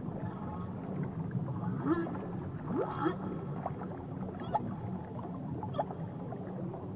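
Whale calls heard underwater: several rising whoops and a few short higher whistles with clicks, over a steady low rumble of water noise.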